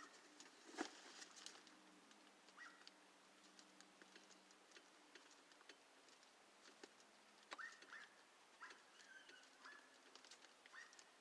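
Near silence: room tone with faint scattered clicks and rustles, and a few short, faint chirps in the second half.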